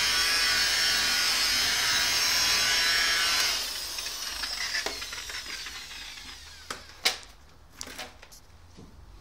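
Electric rotary car polisher with a foam pad running steadily at speed, then switched off about three and a half seconds in, its whine falling away as the motor spins down. A few sharp knocks follow, the loudest about seven seconds in.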